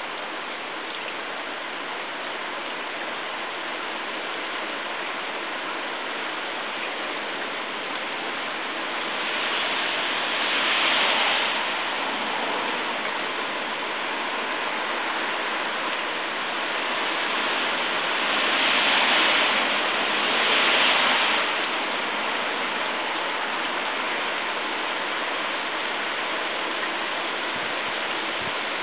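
Steady hiss of water falling onto a nylon jacket and wet patio tiles. It swells louder around ten seconds in and again around twenty seconds in.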